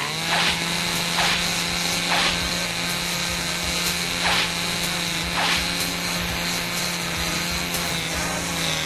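Cartoon sound effect of an electric power saw running steadily, cutting through hedges, with several brief louder cutting strokes about a second apart.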